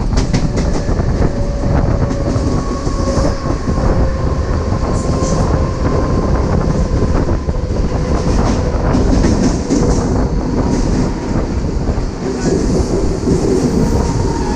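Mumbai suburban EMU local train running, heard from its open doorway: steady wheel-on-rail rumble with quick clicks over rail joints and points. A faint electric traction-motor whine sits above it and falls slightly in pitch.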